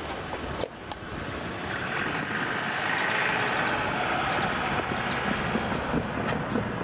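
Cars driving over a railway level crossing, with tyre and engine noise that swells as one car passes close about three to four seconds in.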